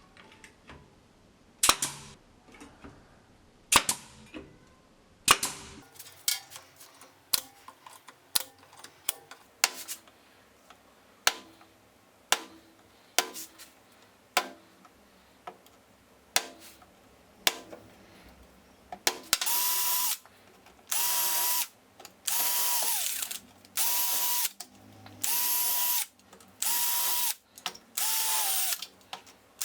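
A string of sharp knocks and clicks, roughly one a second, then a power drill running in about seven short bursts of about a second each, with brief pauses between them.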